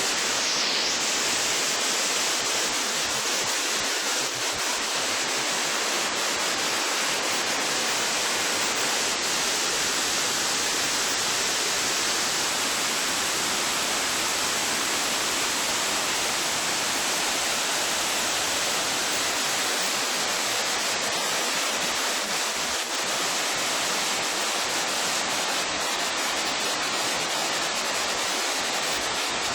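Waterfall: falling water rushing in a steady, even hiss with little deep rumble.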